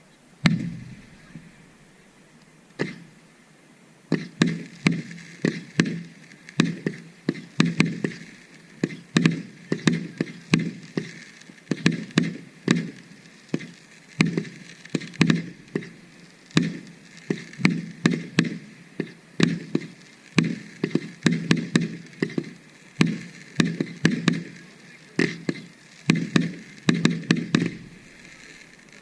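Aerial firework shells bursting in quick succession: two single bangs at first, then from about four seconds in a rapid run of sharp bangs, two or three a second, each with a short rumbling tail.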